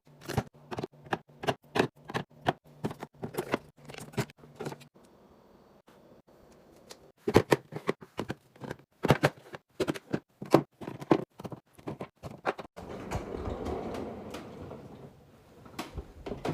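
Food containers and packaging being handled and set down during a fridge restock: a run of sharp clicks and taps, then about two seconds of steady rustling noise near the end.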